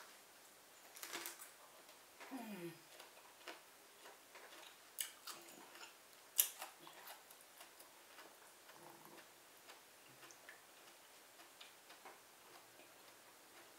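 Quiet eating sounds: scattered wet lip smacks and mouth clicks as a person chews seafood boil, with a short falling hum about two seconds in.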